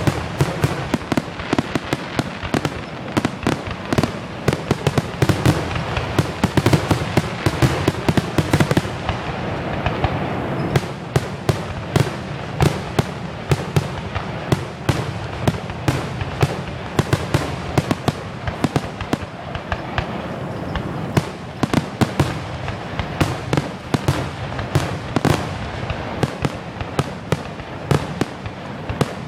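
Aerial fireworks display: a dense, continuous barrage of sharp cracks and booms over a steady rumble, typical of a finale.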